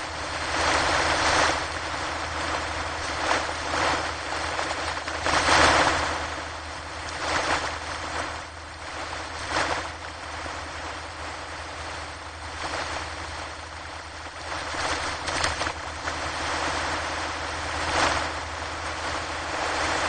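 Ocean surf breaking and washing on a shore: a steady rushing noise that swells and eases with each wave, loudest about six seconds in.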